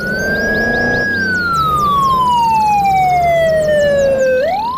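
Police car siren wailing: the tone rises, holds briefly, then slides slowly down for about three seconds and starts climbing again near the end.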